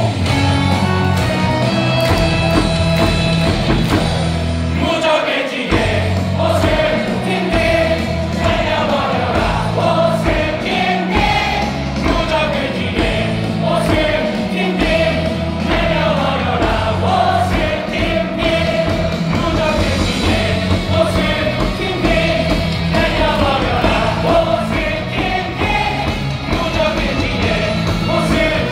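A baseball crowd sings a batter's cheer song in unison over loud music with a steady beat from the stadium sound system. The bass drops out briefly about five seconds in.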